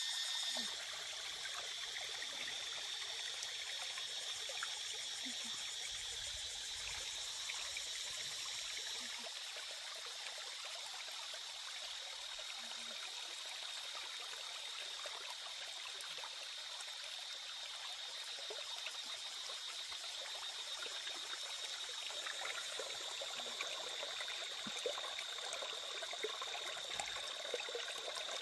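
Shallow stream trickling over rocks, with scattered light splashes and drips as a gutted snake is rinsed in the water. A steady high-pitched tone runs under it.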